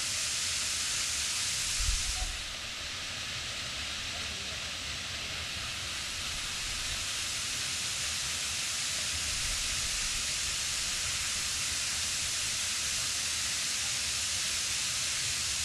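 Waterfall rushing: a steady hiss of falling water, with a brief low bump about two seconds in.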